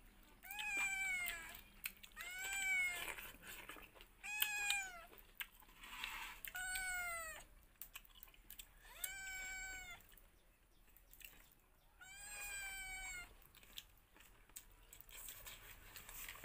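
A cat meowing repeatedly: six drawn-out calls about two seconds apart, each rising then falling in pitch.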